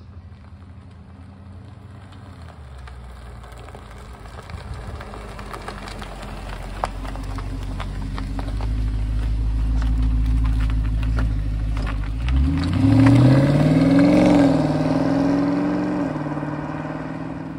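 Jaguar XKR's supercharged V8 approaching at low speed and passing close by, its steady engine note growing louder. About twelve seconds in it accelerates away: the pitch climbs, drops back as it shifts up, then holds and fades as the car drives off.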